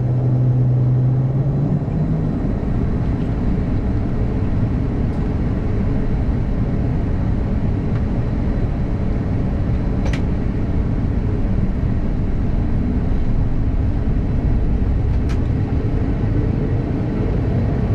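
Turboprop engines and propellers of a Bombardier Dash 8-Q200 running on the ground, heard from inside the cabin. A steady low propeller hum rises slightly about two seconds in and turns into a dense low rumble that holds steady, with a couple of faint clicks.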